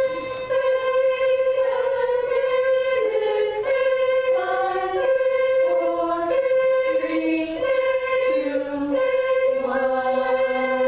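Barbershop-style chorus singing an interval warm-up without accompaniment: one part holds a single steady note while another part steps down a scale one note at a time against it.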